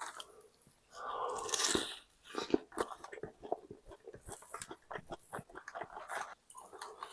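A person biting into a crispy deep-fried chimichanga: one crunch about a second in, then chewing with many small crunches.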